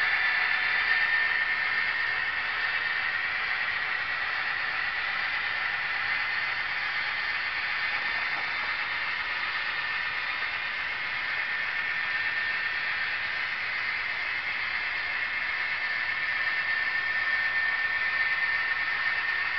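Model freight train running on a layout: a steady whirring hiss of the cars rolling on the track, with a thin steady whine throughout.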